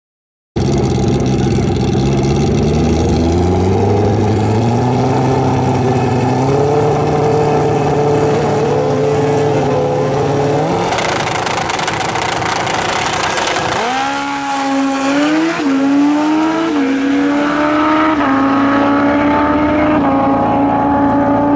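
Two drag-racing motorcycles at the starting line, engines held and brought up to launch revs, then launching together with a loud blast about eleven seconds in. They pull away down the track, engine pitch rising and dropping back at each of several upshifts.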